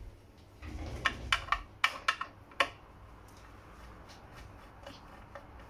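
Handling noise from an aluminium-cased radar receiver module being moved on a workbench: about six short, sharp clicks and light knocks during the first half.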